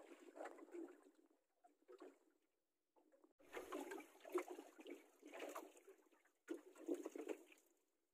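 Faint water lapping and splashing against a small boat's hull, coming in short irregular patches.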